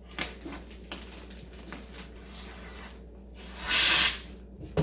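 Aerosol can of shaving cream spraying once, a hiss of under a second about three and a half seconds in, after a few faint clicks and squishes.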